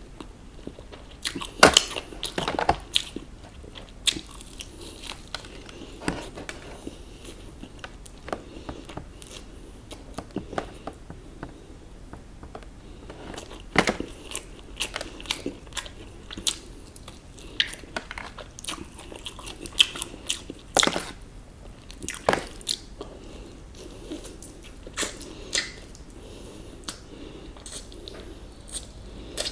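Close-miked crunching bites and chewing of KFC fried chicken, with crisp crackling snaps of the coating. There is a loud cluster of crunches about two seconds in, then more scattered crunches and chewing.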